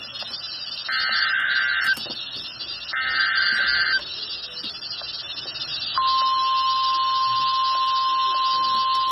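NOAA Weather Radio Emergency Alert System tones: two one-second bursts of the SAME digital header, a second apart. After a short pause, a steady single-pitch warning alarm tone begins about six seconds in and holds, all over radio hiss. This is the sequence that opens a new warning broadcast, here a tornado warning.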